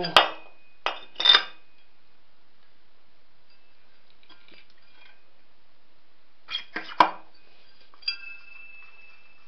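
Steel go-kart spindle clinking against the freshly fitted ball bearing and the aluminium rim as it is slid through and the rim is turned on it. There are a few sharp metallic clinks at the start and a loud cluster about seven seconds in. A last clink about eight seconds in leaves a faint metallic ring.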